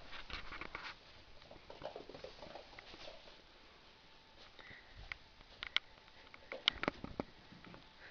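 A three-month-old kitten sniffing close to the microphone, soft and faint, with a few sharp little clicks or taps in the second half.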